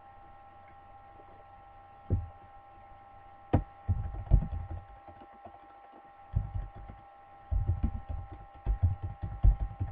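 Typing on a computer keyboard, the keystrokes coming through as low thumps in quick clusters starting about two seconds in, over a steady electrical hum.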